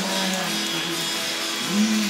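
Music with a plucked guitar, holding steady pitched notes.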